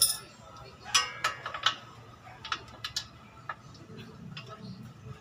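Metal hand tools and small steel parts clinking and tapping as they are handled and set down on a concrete floor: a sharp clink at the start, a cluster of clinks about a second in, then lighter, irregular taps.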